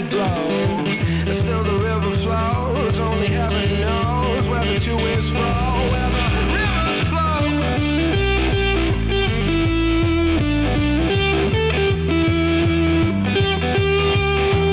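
Background rock music led by guitar, over a steady bass line.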